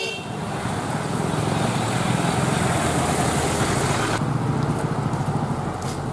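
Road traffic: a vehicle's engine running under a loud, steady hiss that cuts off abruptly about four seconds in, leaving the low engine rumble.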